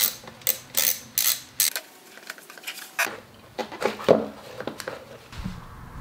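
Hand ratchet loosening the bolts of a motorcycle's air filter housing, the pawl clicking in short bursts on each back-swing, several in quick succession at first and then a few more spaced out.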